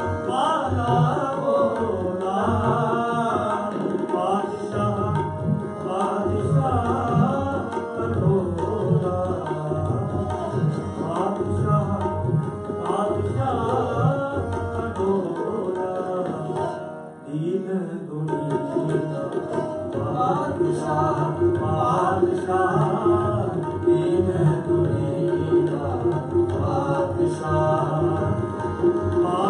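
Sikh shabad kirtan: tabla playing a steady rhythm under harmonium and a bowed string instrument, with a sung melody. The music dips briefly a little past halfway, then carries on.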